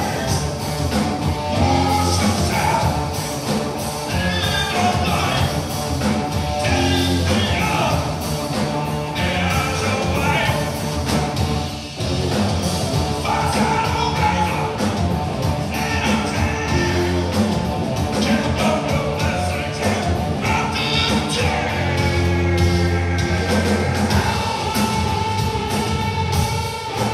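A hard rock band playing live, with distorted electric guitars, bass and drums under a male lead vocal. The drums hit steadily, and the band drops back briefly about twelve seconds in.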